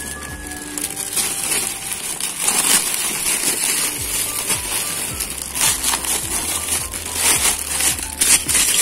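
Crinkling and crackling of packaging, with scattered sharp knocks and clicks, as a new stainless-steel motorcycle exhaust and its packing are handled and searched for loose parts.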